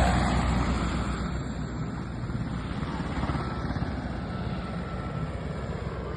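Airbus AS350 single-engine helicopter flying by, loud at first and fading steadily as it moves away.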